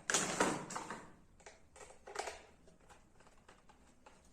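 Plastic clicks and knocks from a toy RC helicopter's remote control being handled, louder in the first second, then a few faint clicks.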